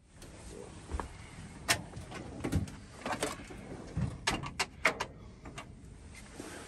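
Irregular light clicks and knocks from hands working at a cabinet of drawers, a few sharper taps among them.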